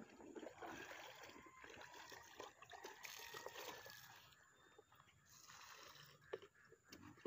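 Faint sloshing and trickling of river water in a plastic bucket as it is dipped full in the shallows and carried, with water dribbling from it.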